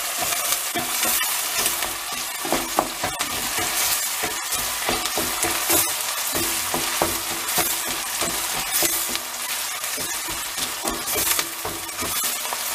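Diced onions and green peppers sizzling in oil in a stainless steel pot, stirred with a wooden spoon that scrapes and knocks against the pan many times; the onions are being sautéed until soft.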